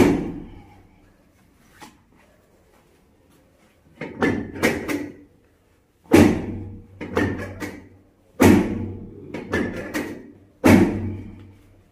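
Chiropractic drop table: its drop section clunks down against its stop under the practitioner's thrusts during a low-back adjustment. There are about a dozen sharp knocks, some single and some in quick groups of two or three, each with a short ringing tail.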